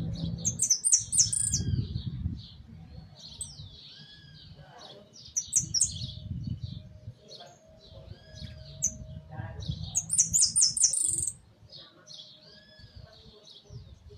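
Saffron finch singing: three phrases of quick, high chirping and sliding notes, a few seconds apart, with a low murmur beneath.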